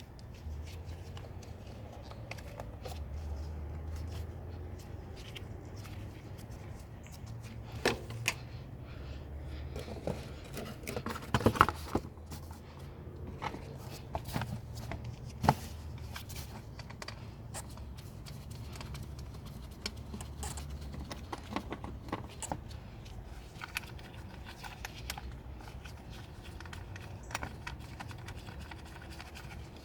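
Scattered metallic clicks, clinks and scrapes of hand tools over a low steady hum, with a few sharper knocks around the middle.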